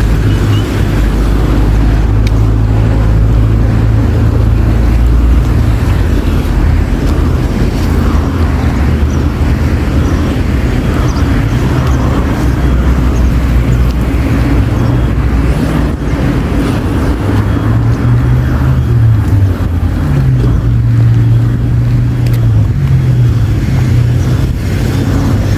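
City street traffic: motor vehicles passing with engines running, a loud, steady low drone throughout. In the second half, engine notes rise and fall in pitch as vehicles pass or change speed.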